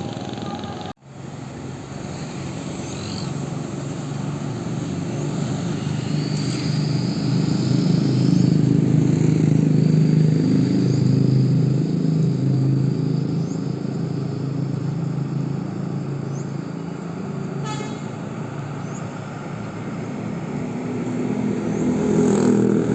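A bus's diesel engine running as it passes at close range. It grows louder to a peak about eight to eleven seconds in, then fades, and swells again near the end.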